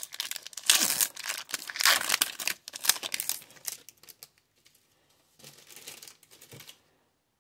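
Foil wrapper of an O-Pee-Chee hockey card pack being torn open and crinkled, in a run of sharp crackling bursts for about four seconds. A fainter rustle of handling follows about five and a half seconds in.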